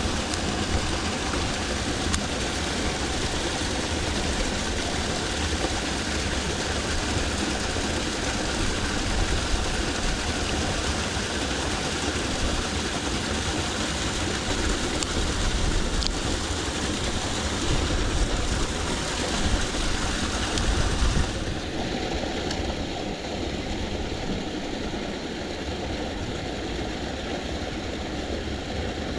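Steady rush of flowing water in a small irrigation channel. About two-thirds of the way through, the sound suddenly turns duller and slightly quieter.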